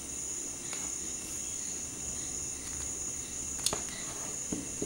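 Small sharp plastic clicks as a Redmi 2 handset's housing is pried open with a thin tool, the clearest about three and a half seconds in, over a steady high-pitched whine.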